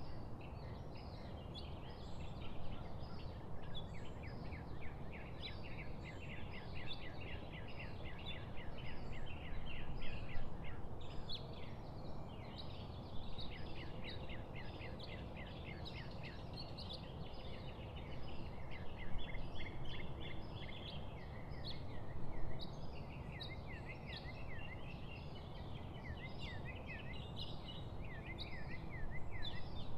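Many small songbirds chirping and trilling together in quick repeated notes, over a steady low background noise.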